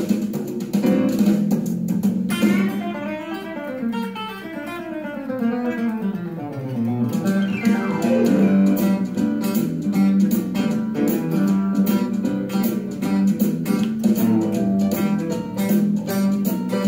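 Country and western-swing instrumental: Telecaster electric guitar lead over bass, drums and piano. A couple of seconds in, the drums drop out and leave the guitar playing cascading runs; the full band comes back in about halfway through.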